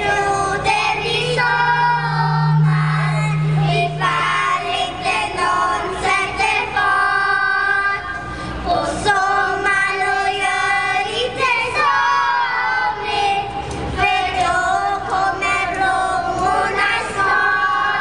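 Children's choir singing a song into stage microphones, amplified over a PA. A low steady tone sounds under the voices for a few seconds about a second in.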